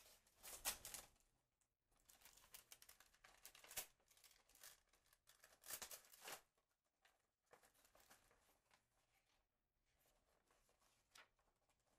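Faint rustling and crinkling of paper being handled, in short scattered bursts, with one last small crackle near the end.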